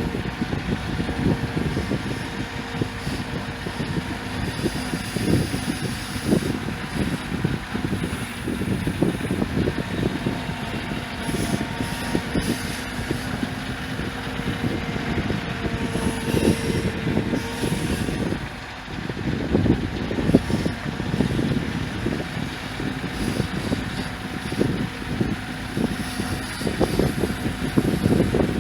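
A tractor engine running steadily under a fluctuating load, with a short dip in level about eighteen seconds in.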